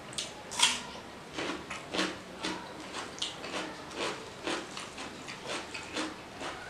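Close-up chewing of a mouthful of mutton curry and rice: wet, smacking mouth sounds at about two a second, with a louder smack about half a second in as the food goes into the mouth.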